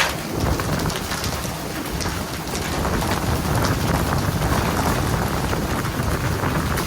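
Dense, rain-like hiss of water spray and splashing, with a boat engine running low underneath.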